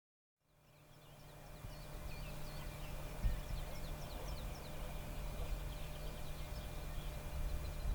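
Birdsong, many short chirps, over a low engine rumble that slowly grows louder: a rally car approaching along the stage.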